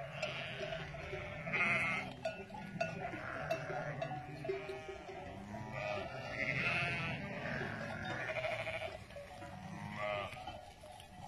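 Large flock of sheep bleating, with many overlapping calls coming again and again.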